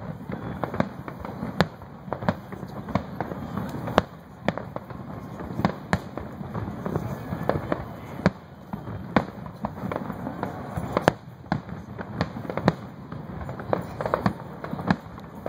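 Fireworks display: aerial shells bursting in a continuous, uneven barrage of sharp bangs, about one or two a second, with smaller pops in between.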